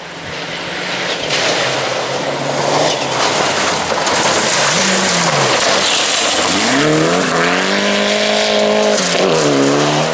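Classic rally car driven hard on a stage, its engine revving up and down over loud tyre and road noise. It climbs to a high, held rev about two-thirds of the way through, then dips briefly and rises again just before the sound cuts off suddenly.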